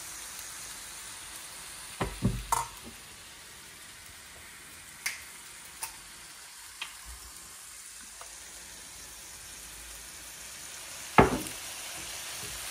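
Fried rice sizzling in a pan while being stirred, with a utensil knocking against the pan several times. The loudest knock comes near the end.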